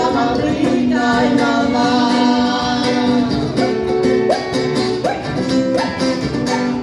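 A woman singing a folk song into a microphone, accompanied by strummed acoustic guitar and cajón strikes keeping a steady beat.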